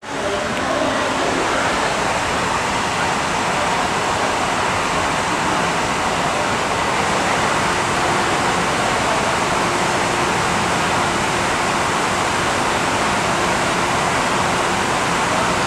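Steady rushing noise of an underground metro platform, ventilation and general station bustle. A faint steady hum joins about halfway through.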